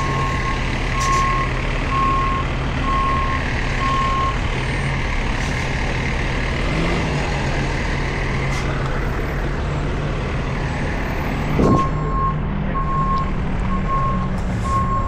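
Medium-duty wrecker tow truck running while it maneuvers, its reversing alarm beeping at a steady pace for about the first four seconds and again over the last three. A brief sharp sound comes just before the beeping resumes.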